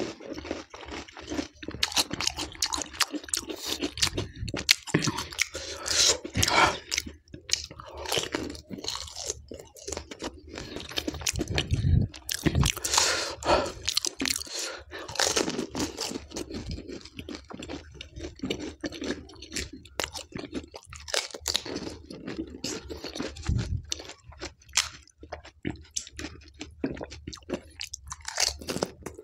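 Close-miked eating of pani puri: crisp, hollow puri shells crunching and cracking between the teeth, with wet chewing of the green chilli pani filling. Irregular sharp crunches follow one another without pause.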